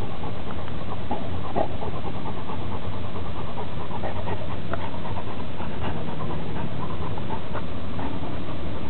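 A dog licking a brick paver, making irregular short wet licking clicks and smacks over a steady low hum.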